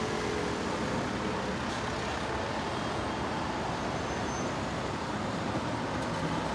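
Steady street traffic noise: a constant rumble of road vehicles with no distinct events.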